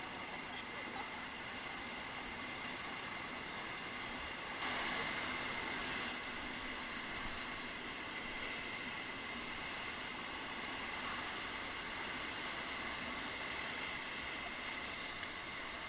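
Steady rushing of whitewater river current, a little louder for a second or two about four and a half seconds in.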